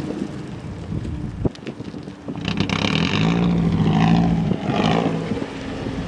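Toyota 86-platform car's flat-four engine with Tomei unequal-length headers, revving up hard from about two seconds in as the car pulls away, then easing off near the end.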